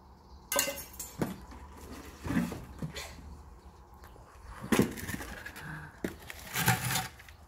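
Plastic buckets and a small hand trowel being handled while repotting a plant: about half a dozen separate knocks and scrapes, spread unevenly.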